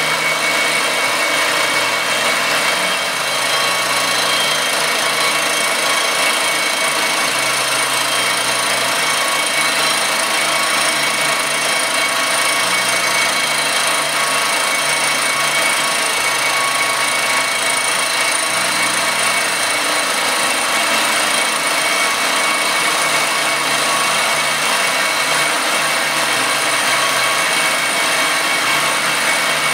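Circa-1948 Gorton 8-1/2D milling machine running under cut, its cutter milling the face of an aluminum casting. The result is a continuous machining noise with steady high-pitched tones over it.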